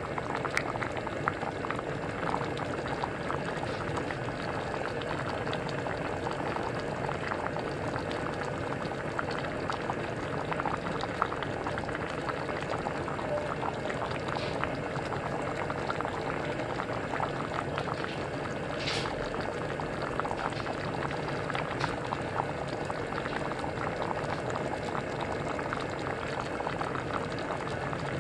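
Pot of champorado (chocolate rice porridge) boiling on the stove: a steady bubbling with many small pops and plops.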